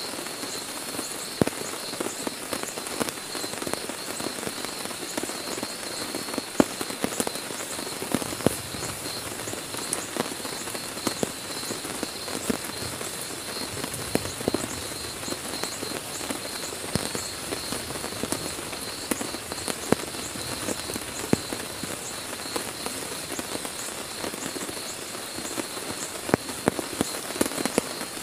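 Heavy rain falling steadily on a tent, a constant hiss dotted with many sharp taps of single large drops.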